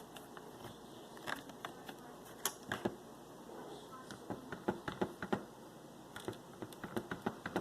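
Irregular light clicks and taps of a locked lock being handled and tugged, held shut.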